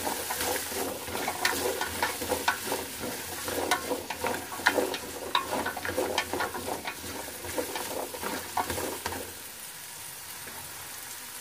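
Food frying in hot oil in a pan, sizzling, while a cooking utensil scrapes and clinks against the pan as it is stirred. The stirring stops about nine seconds in, leaving a steadier, quieter sizzle.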